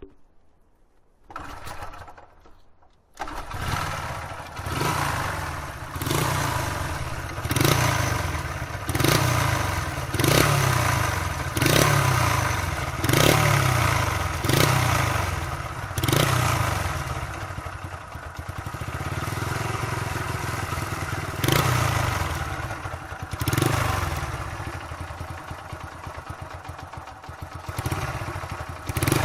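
Honda Little Cub's small single-cylinder four-stroke engine starting about three seconds in, then revved in repeated short blips, about one every one and a half seconds, with a short spell of steadier running midway. The owner traces the abnormal noise from this engine to a failing bearing that makes the transmission grind.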